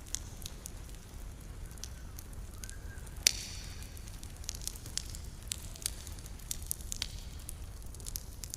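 Wood campfire crackling, with frequent small pops and one sharper, louder pop about three seconds in, over a steady low burning rumble.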